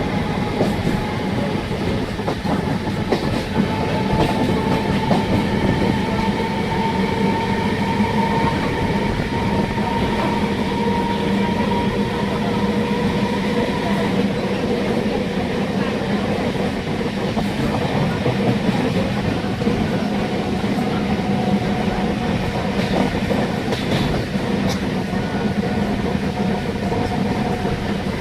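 MEMU electric multiple-unit train running, with steady rail noise and scattered clicks of the wheels, and a whine from its electric traction motors that climbs slightly in pitch as the train accelerates.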